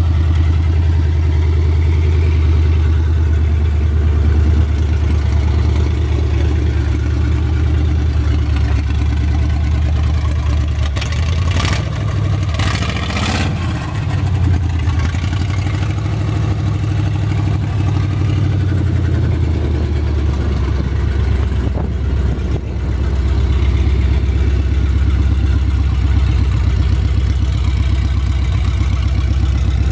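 Ford flathead V8 with finned Edelbrock heads, fitted to a Ford 8N tractor, idling steadily through its short open exhaust pipe.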